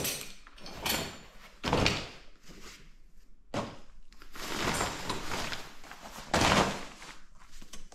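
Ski gear and bags being handled and packed: a string of separate knocks and thuds, with a longer rustling stretch in the middle and the loudest thud near the end.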